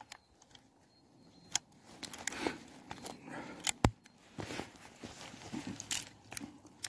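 A Gasser Montenegrin revolver being handled while it is loaded with a slug: a few sharp clicks, the loudest just before four seconds in, amid soft rustling from hands and clothing.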